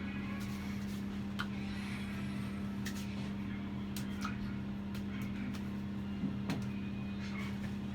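A steady machine hum holding one low pitch, with a few faint clicks and taps over it.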